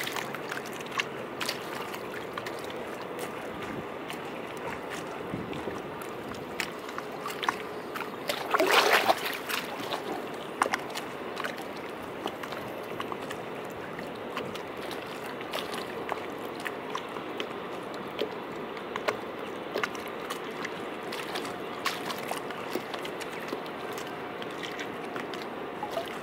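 Small waves sloshing and lapping against harbour quay steps, with many small drips and splashes throughout and one larger splash about nine seconds in.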